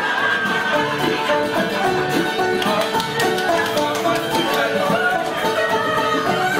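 Dance music playing for a maypole dance, with guests' voices mixed in.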